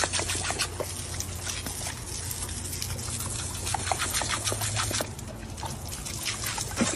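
Garden hose spray nozzle shooting a jet of water that splatters against a dog snapping at the stream: a steady hiss broken by uneven splashes.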